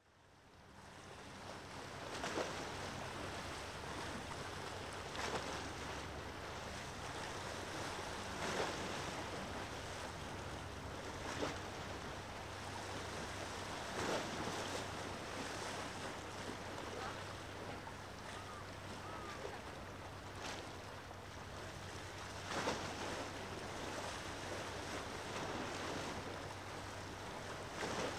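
Small sea waves washing in at the shoreline every two to three seconds, over a steady hiss of wind and light rain, with a faint low hum underneath.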